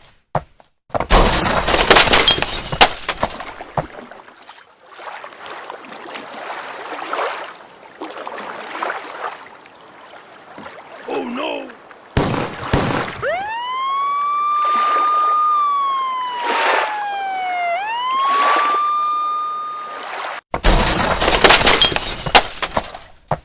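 A run of separate sound effects. Loud crashing bursts come near the start and near the end. In the middle, after a sharp hit, a siren-like wailing tone rises, holds, slides down, then rises again and holds.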